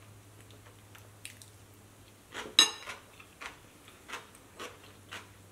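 A metal spoon set down in a ceramic bowl, with one sharp, ringing clink about halfway through. Soft chewing follows, about twice a second.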